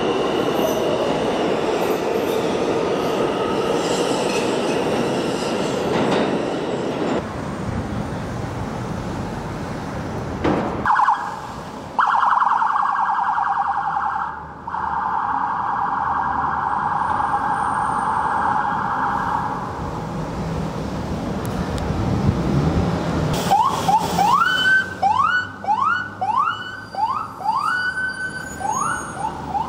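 A subway train running along a station platform, then police sirens: a fast warbling siren tone for several seconds midway, and near the end a siren rising in quick repeated sweeps, about one every half second or so.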